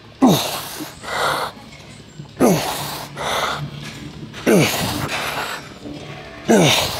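Hard breathing of a lifter working through a set of machine rows. About every two seconds comes a short grunted exhale that drops in pitch, followed by a quick sharp inhale, four times in all, one per rep.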